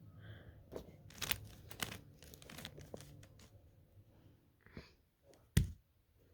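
Plastic puzzle-cube layers being turned by hand: faint, scattered clicks and rasps, with one sharper knock about five and a half seconds in.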